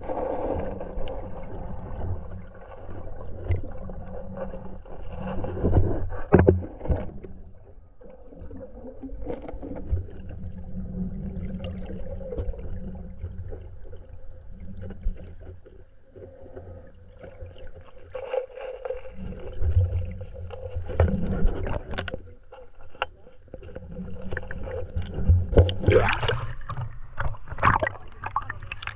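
Stream water heard underwater through a submerged camera: a muffled, low rumble of flowing water with irregular knocks and bumps. In the last few seconds it turns to louder splashing and bubbling at the surface.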